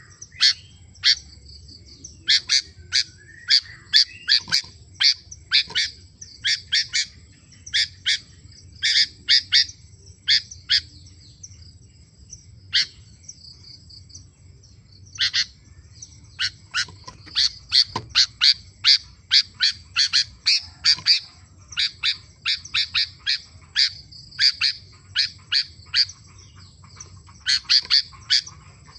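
Sooty-headed bulbul (kutilang) singing vigorously: a long run of short, sharp chirping notes in quick bursts, with a pause of a few seconds about halfway through.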